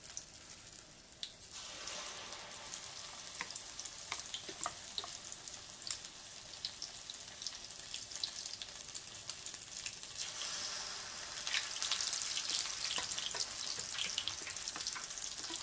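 Prawn fritter batter deep-frying in hot oil in a wok, a steady sizzle scattered with small crackles. The sizzle swells about a second and a half in as a spoonful of batter goes into the oil, and grows louder again about ten seconds in.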